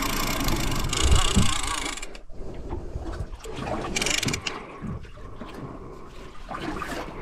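Overhead game-fishing reel being cranked hard to wind in a hooked yellowfin tuna, with short ticks and knocks from the reel and rod, over gusts of wind and water noise that come in bursts, loudest in the first two seconds and again about four seconds in.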